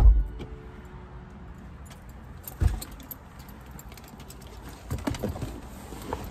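Keys jangling and a handbag being handled in a car's cabin, with a heavy thump right at the start, another knock a few seconds in and a run of clicks and knocks near the end.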